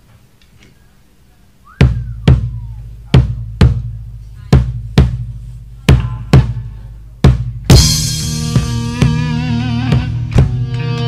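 A rock band's song opening: a drum beats slow pairs of heavy low hits, about one pair a second, and about eight seconds in the full band comes in loudly with electric guitars and bass over the drums.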